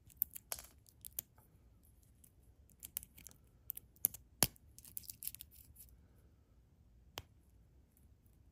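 Scattered small clicks and short scratches of the plastic remote housing and circuit board of wired Apple earphones being picked at and pried apart, with one sharper click a little after four seconds and another near seven seconds.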